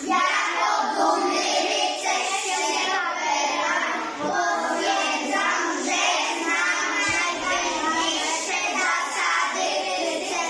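Children's voices singing a song together, continuously.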